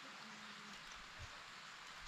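Steady, soft hiss of rain falling on grass and foliage, with a single soft low thump about a second in.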